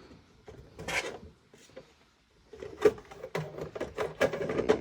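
PS5 plastic side cover being handled and pressed back onto the console: a brief rub about a second in, then a run of plastic clicks and knocks as the cover's clips snap into place.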